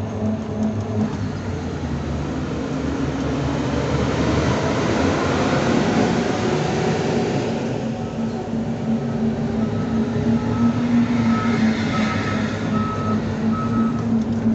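Street traffic heard from a small moving vehicle: a steady hum with road noise. A large vehicle passes close by, its noise swelling and fading about five to eight seconds in. A string of short beeps follows in the later half.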